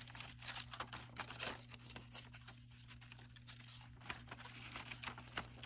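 Faint rustling and crinkling of paper with small taps, as a paper cut-out is handled and pressed into place on a paper pop-up card, over a steady low hum.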